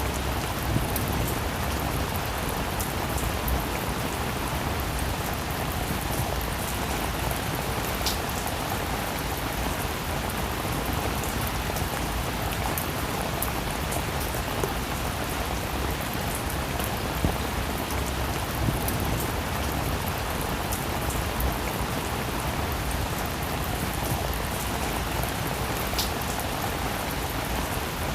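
Steady rain falling, a dense even hiss with scattered individual drops ticking against a surface.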